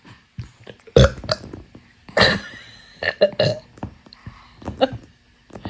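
A woman burping several times in a row, a few loud burps about a second apart.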